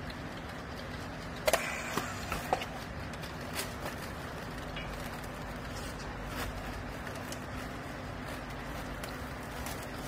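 Steady low machine hum with a few sharp clicks and knocks about one and a half to two and a half seconds in, from a handheld strapping tool and plastic strap being worked around a bale in a vertical clothes baler.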